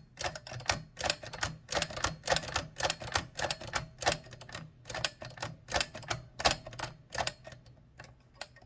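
Sharp mechanical clicks from a 1925 Mignon 4 index typewriter, about three to four a second, as its carriage is stepped back and forth through the escapement and backspace pawls. This is a test of whether the backspace now works reliably after the carriage rack has been aligned. The clicks thin out near the end.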